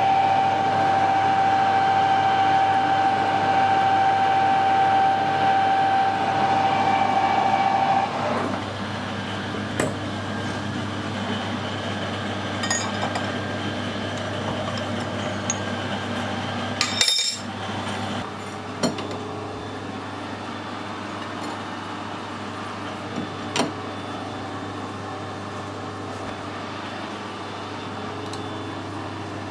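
Harrison 140 metal lathe running with a steady high-pitched squeal for about the first eight seconds as a centre drill fed from the tailstock cuts into the end of a bar. The lathe then runs on with a low hum, and scattered metal clinks and knocks come as the tooling is handled.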